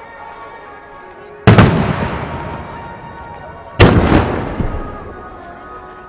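Two aerial firework shells bursting about two seconds apart. Each is a sudden loud boom followed by a long rolling echo that fades over a couple of seconds. Show music plays faintly underneath.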